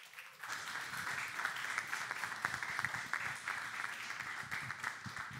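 Audience applauding, with many hands clapping. It builds about half a second in and thins out near the end.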